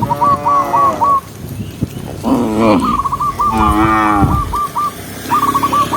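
A cow mooing, three drawn-out calls in a row, the second shorter and falling in pitch. Runs of quick short high chirps sound over and between the moos.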